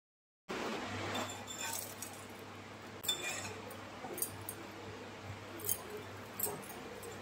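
Pav buns toasting in butter on an iron tawa: a steady sizzle, with a metal spatula clinking and scraping against the pan several times. The sound starts about half a second in.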